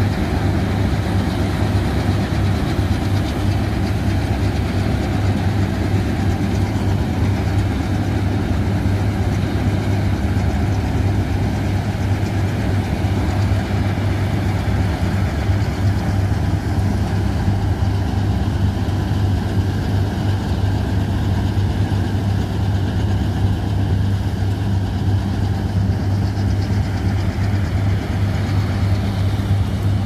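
Punni combine harvester's large engine running steadily under load as it cuts wheat and makes straw chaff, a continuous low hum with machinery noise over it.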